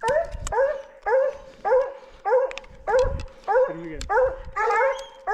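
Hunting hounds baying at a treed mountain lion: loud, rhythmic barking, about two barks a second, each call swooping up and down in pitch.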